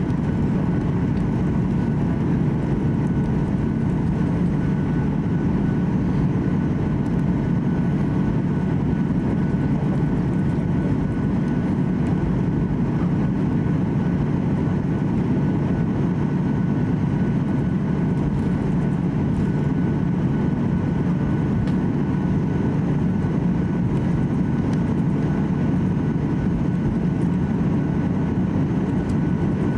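Cabin noise of a Boeing 737-800 taxiing: a steady rumble from its CFM56-7B engines, with a faint steady whine above it.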